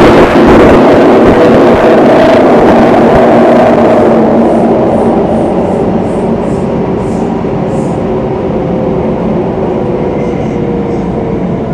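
Singapore MRT train running through a tunnel, heard from inside the carriage: a loud, steady rumble with a low motor whine that becomes quieter about four seconds in. Faint high ticks come a few times a second between about four and eight seconds in, and the whine dips slightly in pitch near the end.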